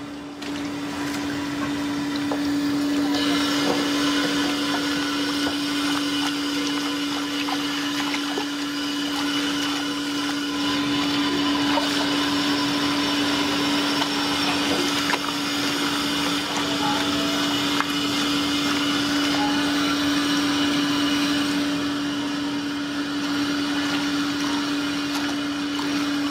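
A machine hum at one steady pitch, with a rushing hiss over it that swells about three seconds in.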